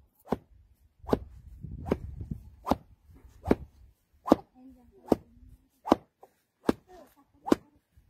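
A stick beating a pile of loose wool in a steady rhythm, one sharp whack about every 0.8 seconds, about ten strokes in all.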